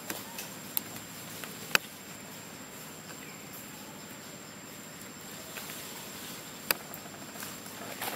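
Outdoor ambience: a steady hiss with a thin, high insect buzz, broken by three sharp clicks, the loudest about two seconds in.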